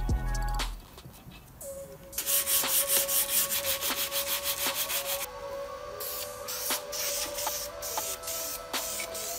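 Aluminium Honda DOHC VTEC valve cover being hand-sanded with an abrasive pad: quick, rhythmic back-and-forth scrubbing strokes that start about two seconds in, scuffing the metal ready for paint.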